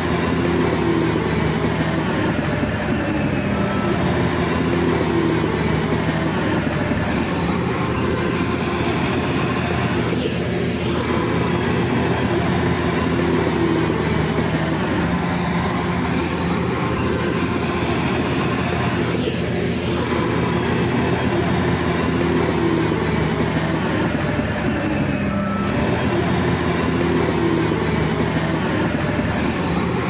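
Shantui crawler bulldozer's diesel engine running steadily under load as it pushes sand, its note rising and falling a little, with the clatter of its steel tracks.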